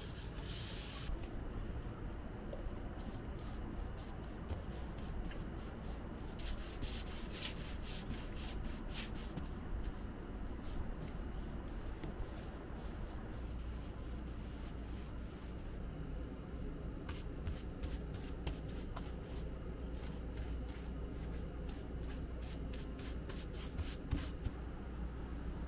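Paintbrush strokes on a plywood box, scratchy swishes of the bristles that come in runs, over a steady low hum.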